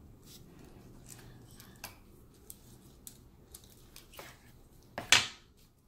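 A chef's knife scraping and tapping on a wooden cutting board as it works the flesh off a grilled eggplant's charred skin: faint scattered scrapes and clicks, then one short, loud scrape about five seconds in.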